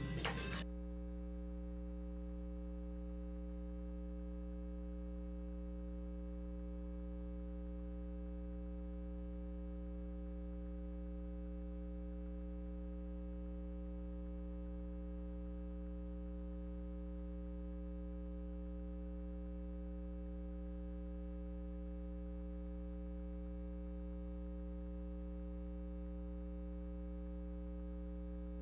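Steady electrical hum with many overtones, unchanging throughout; the tail of the music cuts off about half a second in and the song is not heard.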